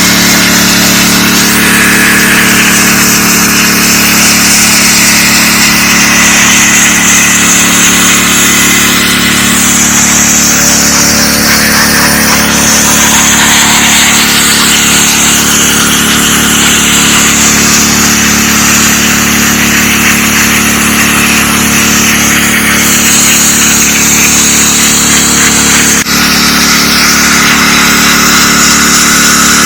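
DeWalt 3600 psi gas pressure washer running steadily, its engine drone under the loud hiss of the water jet spraying concrete, the hiss shifting up and down in pitch; a brief dip in the sound near the end.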